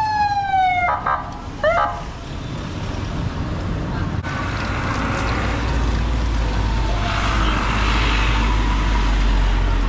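Road traffic noise with a steady low vehicle-engine rumble. In the first two seconds, two loud pitched calls or horn tones, each sliding up in pitch; the first is held for about a second and sags slightly.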